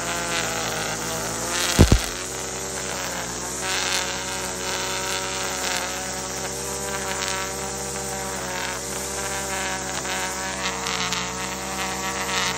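String trimmer running steadily as it edges grass along a concrete curb, its pitch wavering slightly as the head works the grass. A brief loud thump about two seconds in.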